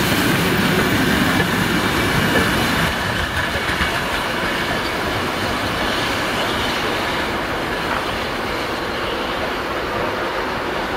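Steam-hauled train of vintage passenger coaches rolling past, the wheels running over the rails, louder for the first three seconds and then easing off a little.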